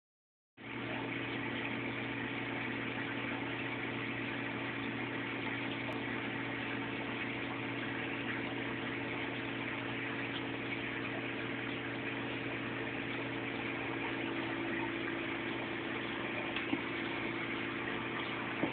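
Steady hum of a reef aquarium's pumps running, with a hiss of circulating water, starting about half a second in and holding unchanged.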